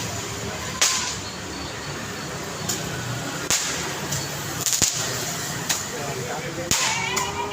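City street ambience: a steady background of street noise with sharp cracks about seven times, several close together a little before the five-second mark, and people's voices about a second in and again near the end.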